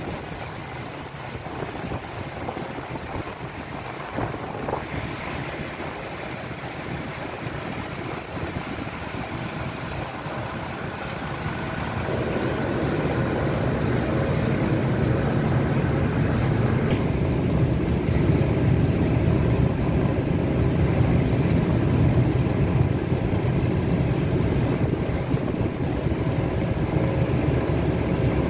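Steady low engine rumble of a vessel on the water, growing louder and fuller about twelve seconds in, with a thin high whine running through it.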